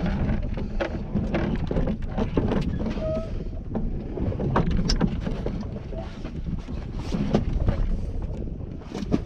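Wind buffeting the microphone aboard a fishing boat at sea, with steady low rumble and scattered knocks and clatter on deck.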